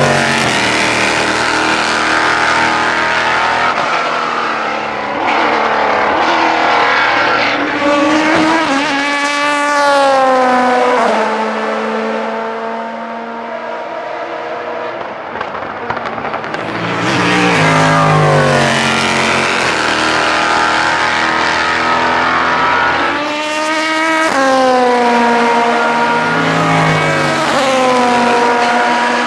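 Prototype race cars (IMSA DPi and LMP2) passing one after another at speed. Each engine note climbs and then drops steeply in pitch as the car goes by.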